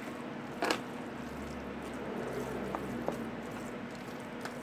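A spoon stirring rice soaked in blood in a foil tray: soft, wet squishing with a few sharp clicks of the spoon against the foil, over a steady low hum.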